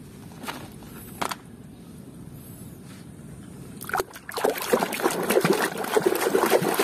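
Water splashing and sloshing in a plastic tub as a hand scrubs muddy plastic toy animals in it, starting about four seconds in and going on busily to the end. Before that, a couple of light knocks.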